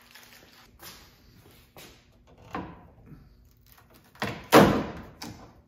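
A few light knocks, then a louder metal clatter and rattle about four seconds in, from the steel door and window-channel hardware of a 1953 Ford F-100 being worked loose by hand during disassembly.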